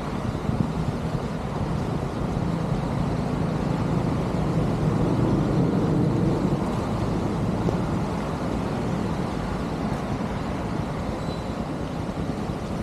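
Heavy rain on a flooded street, a steady low rushing noise that swells for a few seconds midway.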